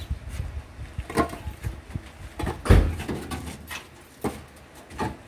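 Concrete hollow blocks knocked and set down as they are unloaded from a truck bed and stacked: several clunks and scrapes, with one heavy thud a little under three seconds in.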